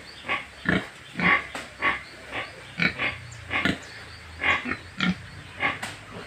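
Gilts (young female pigs) grunting: a steady run of short grunts, about two a second.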